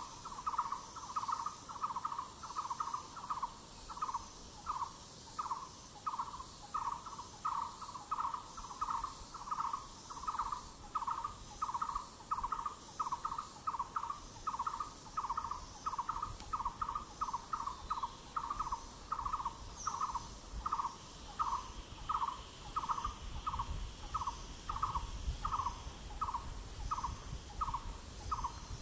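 A forest bird repeating a single short call note, about two a second, over a steady high insect drone. Partway through, a low rumble of breeze on the microphone comes in and grows stronger.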